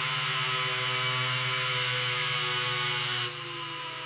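An electric motor whirring steadily, like a power tool or electric hoist, with a strong high hiss over several steady tones; the hiss drops away about three seconds in, leaving a quieter whir.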